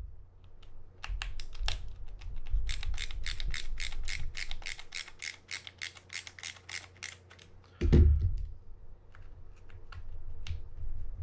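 Screwdriver backing out the small body-cover screws of a Jarvis Walker EA 700 spinning reel: a run of even small clicks, about four a second, then a single low thump about eight seconds in and a few scattered clicks.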